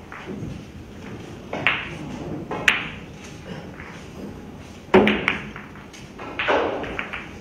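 Billiard cue striking the cue ball about five seconds in, followed by several quick clicks of balls colliding. A few softer knocks and rattles come before and after it.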